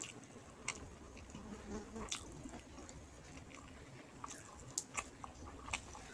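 Close-up mouth sounds of someone eating rice with fish curry: soft chewing with scattered sharp, wet clicks and smacks.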